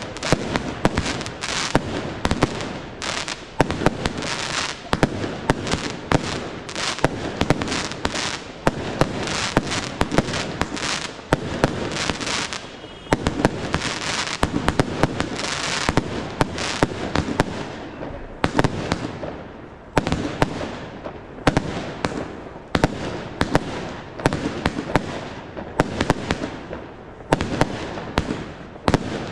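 Fireworks display: a rapid, continuous run of launches and sharp bangs with crackle between them, easing for a moment at about 18 seconds before picking up again.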